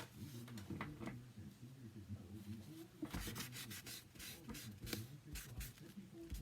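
Paper and cardstock rustling and rubbing under the hands as freshly glued pieces are pressed and smoothed down. A quick run of scratchy rubs comes in the second half, over a faint low hum.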